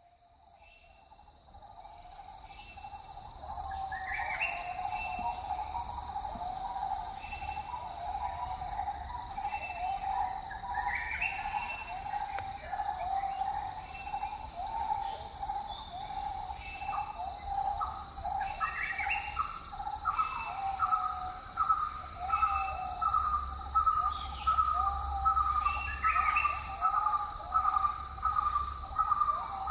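Several birds calling: one keeps up a steady run of short repeated notes, and a second, higher run of quick repeated notes joins about two-thirds of the way through. A separate rising call comes back every few seconds over a steady high insect whine.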